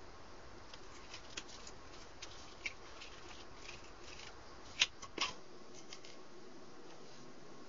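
Light scattered clicks and taps of thin balsa strips being picked up and handled on a cardboard work board, with two sharper clicks about five seconds in.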